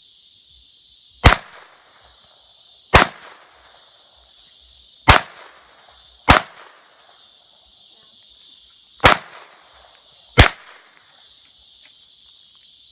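Six single shots from a Ruger SR22 .22 LR semi-automatic pistol, fired at an uneven pace a second or two apart, each a sharp crack with a brief echo. Crickets or other insects trill steadily underneath.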